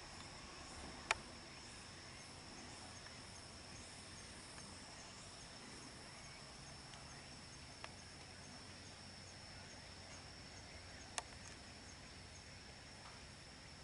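Insects trilling in a faint, steady high tone, with another insect chirping about twice a second above it. Three sharp clicks cut in, about a second in, near eight seconds and near eleven seconds.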